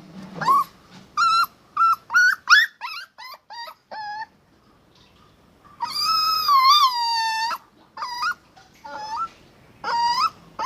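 Dog whining and yelping: a run of short high-pitched rising yelps, about two a second, then one long wavering whine in the middle, then more short yelps.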